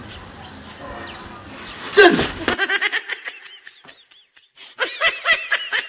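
A loud falling swoosh, then a recorded laugh: rapid high-pitched snickering in quick bursts, with a short break partway through before it picks up again.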